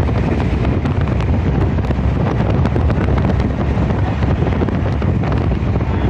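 Steady, loud wind buffeting on the microphone, with the low rumble of a moving vehicle underneath.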